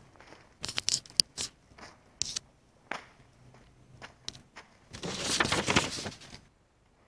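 A short wooden-handled knife chopping and scraping at the base of a young rattan plant in dry leaf litter: a run of sharp cracks and crunches, then, about five seconds in, a louder crackling crunch of dry leaves and stems lasting about a second and a half.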